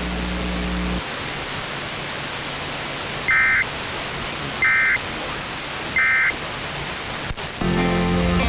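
Emergency Alert System end-of-message data signal: three short bursts of warbling digital tones about a second and a half apart over steady radio hiss. Near the end a click, then station music comes back in.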